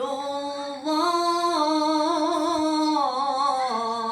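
A female voice chanting Quran recitation in melodic tajweed style, holding a long drawn-out vowel and ornamenting it with stepwise turns in pitch. It dips briefly a little under a second in, then comes back louder.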